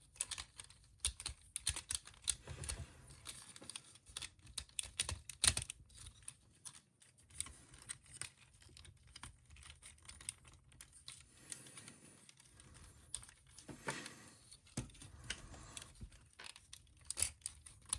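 Hard plastic action-figure parts clicking, tapping and rattling in irregular small clicks as upgrade-kit pieces are handled and pushed onto a Transformers figure.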